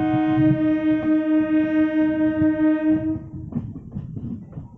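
Electric multiple-unit train's horn sounded in one long, steady blast of about four seconds that cuts off a little after three seconds in. The rattle and clatter of the train running over the track follows.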